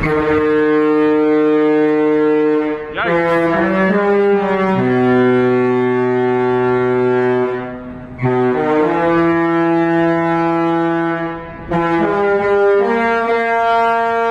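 A cruise ship's musical multi-tone horn playing a slow, loud tune of long held chord-like notes. The pitch steps to a new note every second or few, with two brief breaks between phrases.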